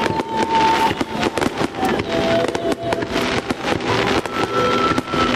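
Fireworks display: aerial shells bursting in a rapid, overlapping run of bangs and crackling. A steady high tone sounds over it and steps to a new pitch a few times.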